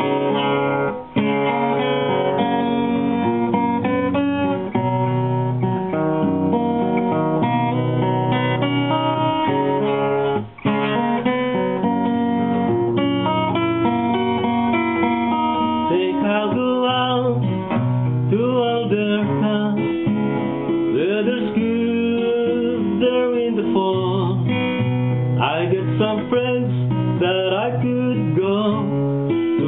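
Acoustic guitar strummed in steady chords, with a singing voice coming in about halfway through.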